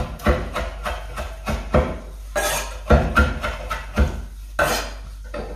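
Kitchen knife chopping fresh wild herbs (stinging nettle tips, ground ivy, garlic mustard) on a wooden cutting board: a quick, uneven run of knocks, several a second, that stops shortly before the end.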